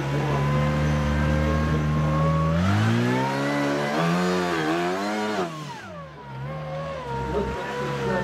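Rock crawler buggy's engine running steadily under throttle, then revving higher about three seconds in and rising and falling with throttle blips as the buggy climbs a steep rock face, dropping back near the six-second mark.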